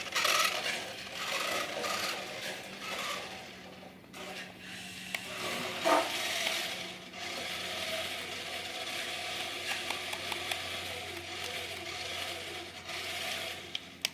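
Toy remote-control Dodge Charger SRT Hellcat running: its small electric motor and gears whir while the car rubs and scrapes across boxes, with one sharp knock about six seconds in.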